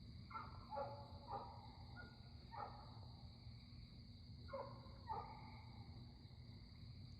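Crickets trilling steadily at a high pitch, a Missouri evening chorus. Over it come a few short, pitched animal calls: a cluster about a second in, one at about two and a half seconds, and a pair around five seconds.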